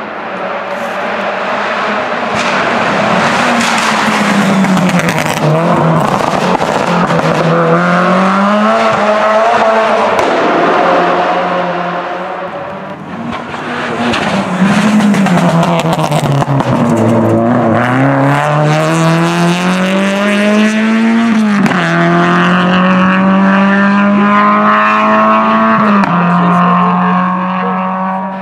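Renault Clio RS rally car's engine revved hard through the gears on a closed stage, its pitch climbing and dropping sharply with each shift and lift for braking, as the car passes by. The car goes through in two separate passes.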